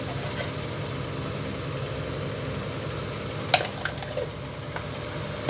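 Hot oil sizzling and bubbling in a steel frying pan, over a steady low hum. A sharp click comes about three and a half seconds in.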